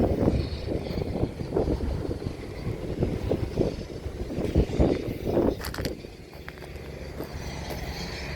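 John Deere 700K crawler dozer's diesel engine running, a steady low rumble that swells unevenly, with a few sharp clicks a little past the middle.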